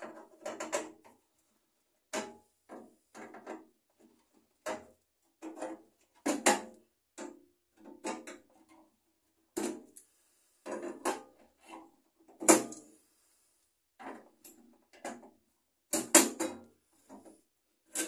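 Pliers clicking, tapping and scraping against a microwave oven's sheet-metal cabinet in an irregular string of short knocks while a part of the turntable motor mounting is pried loose.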